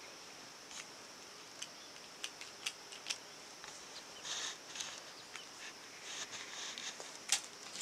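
Quiet room with scattered small clicks and two short soft rustles over a faint steady high hiss; the sharpest click comes near the end.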